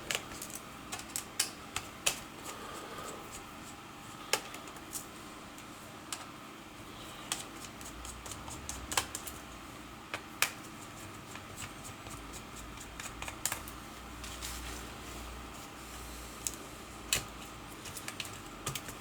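Sparse, irregular small clicks and taps of a screwdriver and plastic and metal parts being handled as the hard drive is unscrewed and taken out of an Asus K551L laptop. A faint low hum runs underneath from about eight seconds in.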